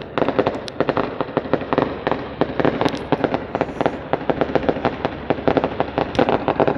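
Fireworks going off in rapid succession: a dense run of sharp bangs and crackles, several a second.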